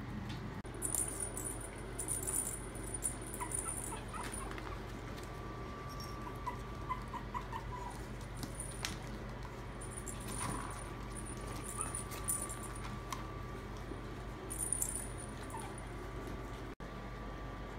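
Maltese puppies at play, with the bell-filled hanging ball toys of a pet play gym jingling in short bursts several times as they are knocked, and a few small puppy squeaks.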